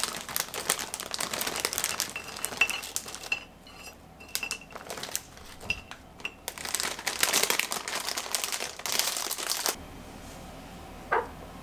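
Clear plastic bag crinkling as cookies are pulled out of it and set down on a porcelain plate, with small clicks of cookies against the plate. The crinkling stops near the end, and one short sharp tap follows.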